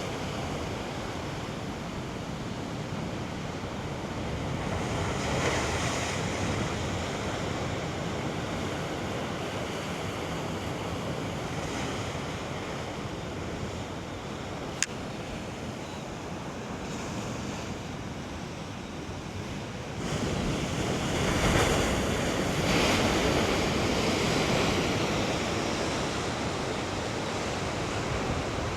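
Ocean waves surging and breaking against the coastal rocks at high tide, with wind blowing across the microphone; the surf swells louder about five seconds in and again for several seconds in the last third. A single sharp click about halfway through.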